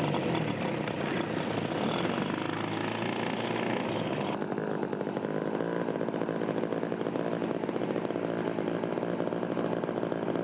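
Radio-controlled scale model plane's 3W twin-cylinder engine running, a steady propeller buzz; it turns a little duller about four seconds in.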